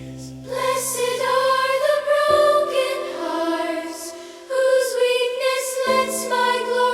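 Slow gospel piano hymn music: sustained piano chords with a wavering melody line held above them, the bass changing twice.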